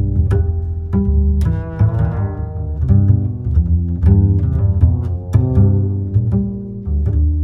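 Background music on low strings: held bowed notes with sharp plucked notes over them.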